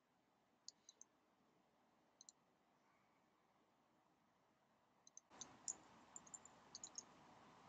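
Faint computer mouse and keyboard clicks: a few single clicks about a second in and a pair near two seconds, then a quicker run of key taps from about five to seven seconds in, over a faint hiss that comes up about five seconds in.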